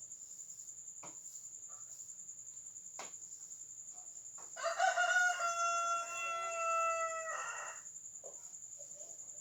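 A rooster crowing once: one long call of about three seconds, starting about halfway through, over the steady high trill of crickets.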